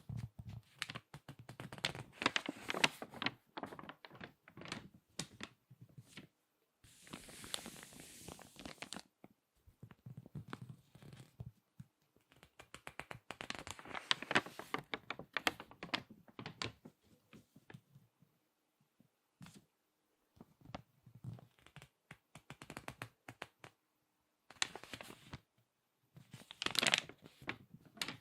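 Crinkly magazine pages being squeezed and turned by hand: crackling paper in bursts of a few seconds with short pauses between. A smoother swishing rush comes about eight seconds in.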